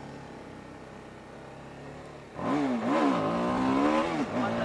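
Motorcycle engine ticking over at a low idle, then revved hard about two and a half seconds in. The pitch rises and falls several times in quick succession before holding steady, higher and loud, near the end.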